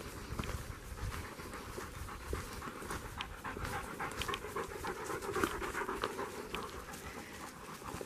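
German shepherd panting steadily from the heat.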